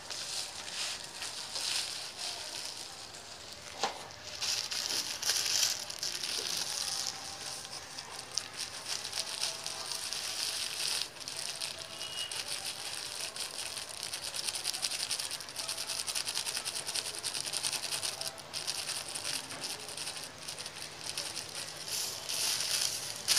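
Thin plastic bags crinkling and rustling as they are handled, with a sharp click about four seconds in.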